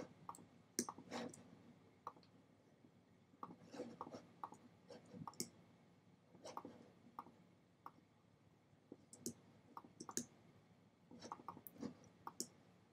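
Faint, irregular computer mouse clicks in small clusters every second or two.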